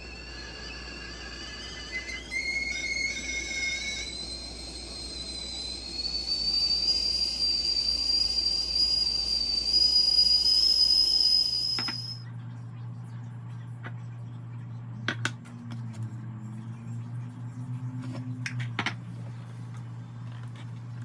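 Stovetop kettle whistling at the boil, its several shrill tones creeping up in pitch before cutting off abruptly about twelve seconds in. A low steady hum with scattered clicks follows.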